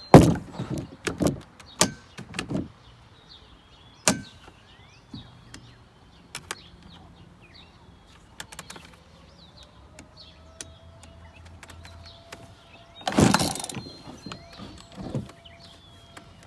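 Recoil starter of an old chainsaw, unused for years, being pulled over and over at uneven intervals, with the longest rasp near the end. The engine never fires.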